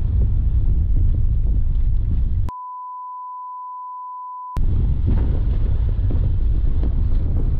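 Wind buffeting the microphone, with the low rumble of a car in motion. About two and a half seconds in, all of it is replaced by a steady high beep, a censor bleep, which lasts about two seconds before the rumble comes back.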